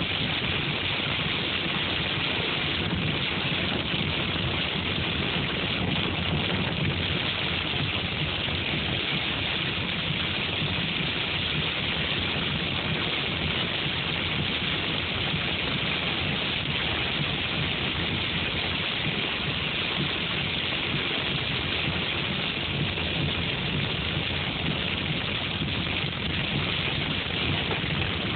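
Heavy rain mixed with hail pelting a car's roof and windshield, heard from inside the cabin as a dense, unbroken patter. The car's low hum runs underneath it.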